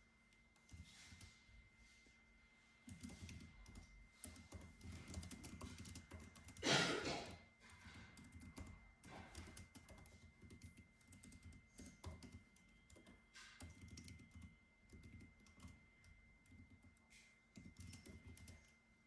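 Computer keyboard typing in irregular runs of soft key clicks, with one louder brief noise lasting about half a second a third of the way in. A faint steady high-pitched tone sits underneath.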